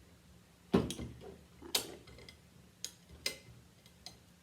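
Sharp, irregular clicks and taps as craft wire is wrapped and tucked around a glass wine bottle, about five in all, the loudest about three quarters of a second in.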